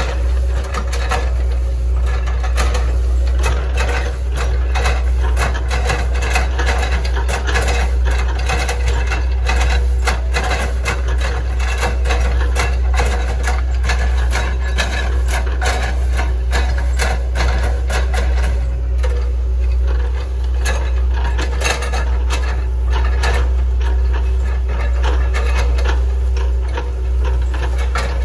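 Hitachi ZX110 excavator's diesel engine running steadily under load, with repeated irregular knocks and cracks of wood as the bucket chops up an oil palm trunk.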